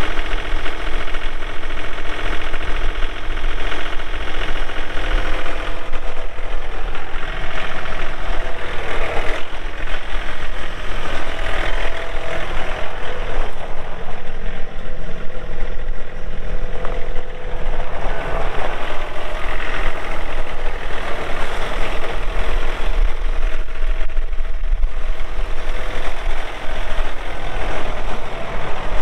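John Deere 3039R compact tractor's three-cylinder diesel engine running with a steady clatter as the tractor drives forward and back, its pitch shifting slightly now and then.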